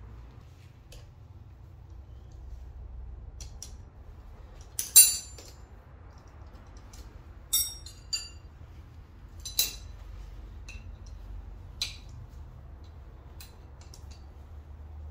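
Metal hand tools clinking against the engine's timing belt tensioner as it is undone: about five sharp clinks, the loudest about five seconds in, with fainter ticks between.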